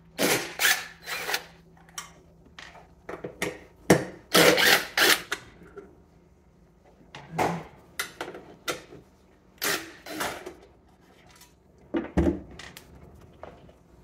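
Cordless drill backing out sheet-metal screws from a refrigerator's metal base panel, in several short runs of about a second each, with the knocks and clatter of the drill against the panel between them.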